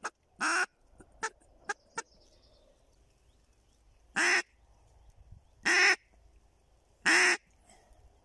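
Live hen decoy duck quacking on the water, calling to draw in drakes: a couple of calls, three quick short ones, then three loud drawn-out quacks about a second and a half apart.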